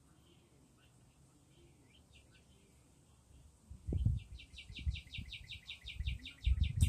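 Wind gusting on the phone's microphone, low rumbling blasts that start about four seconds in, with a songbird singing a fast, even trill of about seven notes a second over it. Faint bird chirps come before the gusts.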